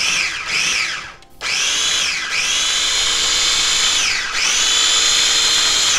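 Small electric food chopper's motor pureeing a basil sauce. It runs briefly, stops for a moment about a second in, then starts again and runs on, its whine dipping and picking back up twice.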